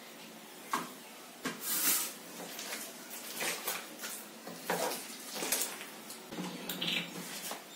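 Bare hand mashing roasted eggplant, tomato and boiled potato into bhorta on a ceramic plate: irregular wet squishes and knocks against the plate.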